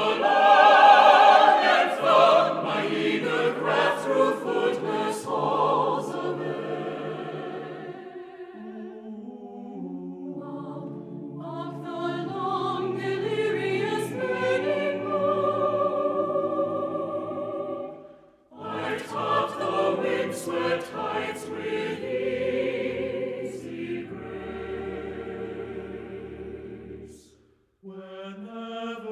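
Background music: a choir singing sustained, wavering notes, with two brief breaks, one a little past halfway and one near the end.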